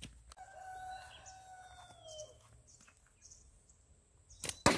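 A rooster crows once, a long call that drops in pitch at its end. Near the end, two sharp snaps close together as a rubber slingshot is fired.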